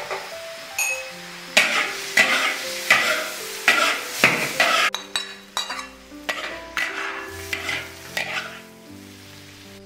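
Metal spatula stir-frying in a large iron wok: a dozen or so scraping, tossing strokes about twice a second over the sizzle of sliced myoga ginger and cured pork, tailing off near the end.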